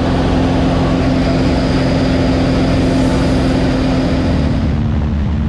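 Cessna 182's piston engine and propeller running steadily, a constant drone.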